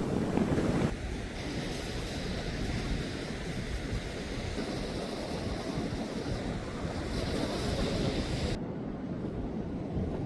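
Sea waves washing onto the beach, with wind buffeting the microphone as a low rumble. The higher hiss drops away suddenly about eight and a half seconds in.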